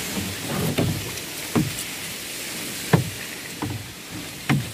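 Small boat being poled through dense water hyacinth, the leaves rustling against the hull, with about five irregular knocks on the boat, the loudest about three seconds in.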